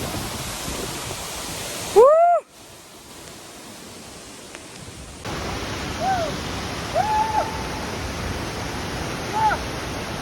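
Waterfall: a steady rush of falling water. The level drops sharply about two seconds in and comes back up about five seconds in, as the clips change.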